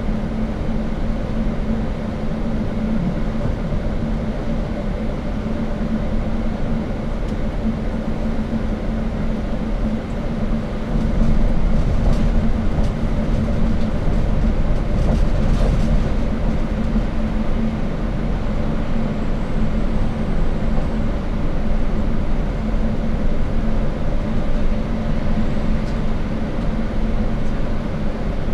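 Steady engine drone and road noise inside a moving bus's cabin, getting a little louder about a third of the way in.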